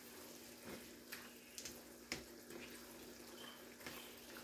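Faint scrapes and light taps of a spoon stirring ground beef in a skillet, a few scattered clicks over a faint steady hiss from the cooking pan and a low steady hum.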